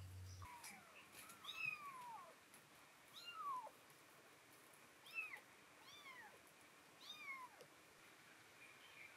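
Kittens mewing faintly: about six short, high, thin calls that arch up and fall in pitch, a couple overlapping.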